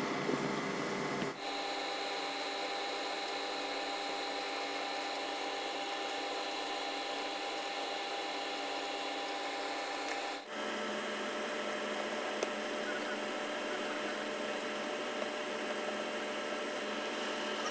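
Steady hum and hiss whose tone shifts abruptly twice, with one faint click.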